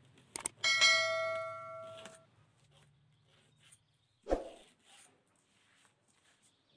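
A metal strip, most likely the long steel ruler, clangs against the wooden workbench and rings, fading over about a second and a half after two quick clicks. A single dull knock on the bench follows a little after four seconds in.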